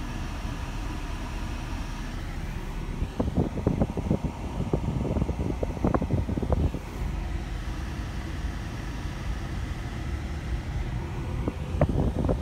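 Steady road and engine rumble inside a moving car, broken twice by spells of irregular thumps and crackle, about three seconds in and again near the end.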